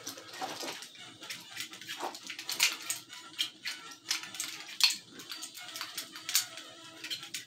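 Airsoft revolvers clicking and clacking as they are spun, flipped and caught in the hands, a quick uneven run of sharp clicks and rattles.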